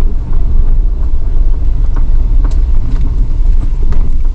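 4x4 vehicle driving on a rough dirt road: steady low rumble of engine and tyres, with a few sharp clicks and knocks from stones and the bouncing body.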